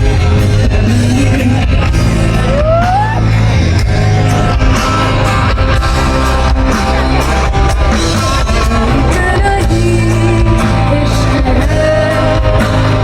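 Loud music with a singing voice over a heavy bass line.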